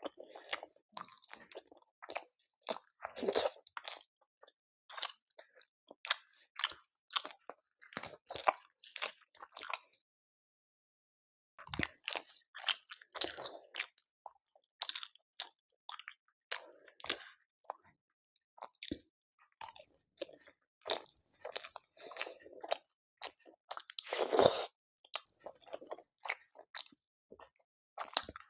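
Close-miked eating sounds: a person chewing mouthfuls of chicken curry, with many short, irregular wet smacks and clicks. There is a break of near silence lasting just under two seconds around the middle, and a louder, longer bite near the end.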